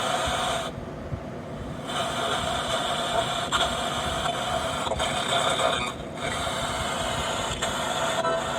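Noisy radio reception: steady static hiss with two brief drop-outs, one about a second in and one near six seconds.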